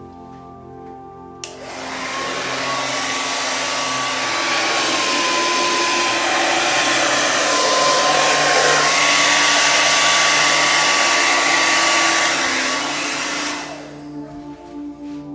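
Hair dryer clicked on about a second and a half in, blowing steadily with a thin whine for about twelve seconds, then switched off and winding down.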